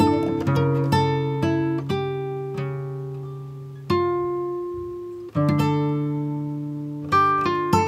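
Background music: a plucked acoustic guitar picking single notes and chords that ring and fade. There are two fuller chords struck about halfway through, and the notes come quicker near the end.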